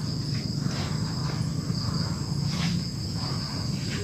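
Insects trilling steadily at a high pitch over a low background rumble.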